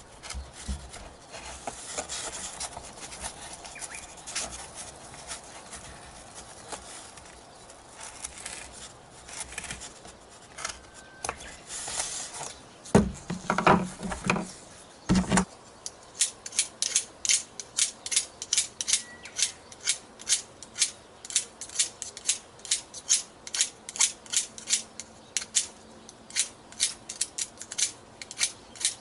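Scratching and handling of a foam model-plane wing on a wooden bench, with a few knocks about halfway through. Then a run of sharp, evenly spaced clicks, about two a second, as a small cutter works on a thin bamboo skewer.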